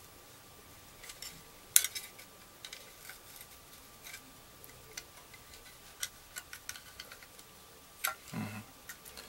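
Thin screwdriver tip clicking and scraping against the plastic frame and circuit board of a Wi-Fi touch wall switch as the board is levered out of its housing. The ticks come irregularly, with one sharper click about two seconds in.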